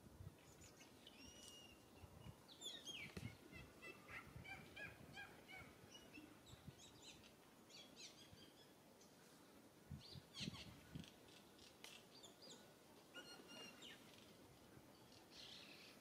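Faint birdsong: many short chirps and whistled calls, with a few soft low thumps and rustles.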